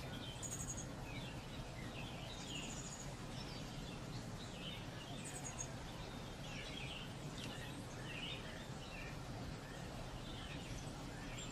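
Small birds chirping, with repeated short calls and a few quick high trills, over a steady low background rumble.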